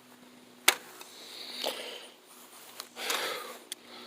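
A few sharp clicks, about a second or two apart, with soft rustling or breath-like hiss between them.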